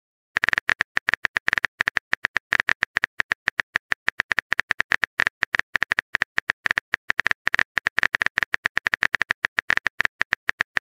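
Phone keyboard typing sound effect: rapid, uneven key clicks, about ten a second, as a text message is typed out.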